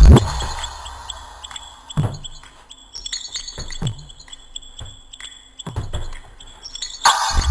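Punches landing on a heavy punching bag hung from a chain: dull thuds every second or two, the hardest at the start and again near the end, where the chain rattles. Music plays underneath.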